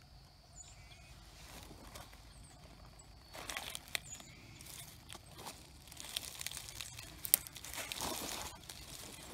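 Dry leaves and twigs rustling and crackling as they are handled close by, starting about three seconds in, with a few sharp snaps. Before the rustling, a bird chirps faintly a couple of times.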